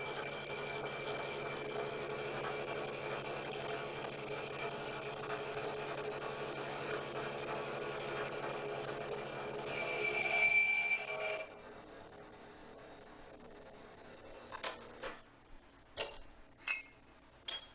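Bridgeport milling machine running with an end mill taking a cut in aluminum, a steady hum with a few held tones that swells for about a second near ten seconds in. The spindle then stops about eleven seconds in, and a few sharp clicks and knocks follow as the vise and part are handled.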